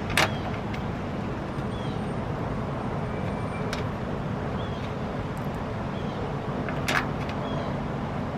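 Two sharp clicks of a bolt being fitted by hand into a headlight mounting, one just after the start and one near the end, with a few fainter ticks between. Under them runs a steady rumble of background noise.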